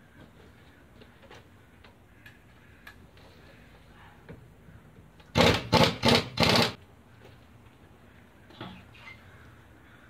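Pneumatic impact wrench running in four short, loud bursts in quick succession about five seconds in, spinning off the front wheel's lug nuts. Otherwise only faint clicks and handling noises.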